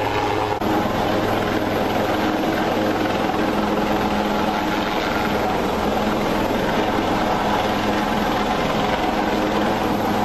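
HAL Dhruv Advanced Light Helicopter hovering, its rotor and turbine engines running steadily while a rescuer and a survivor are winched up.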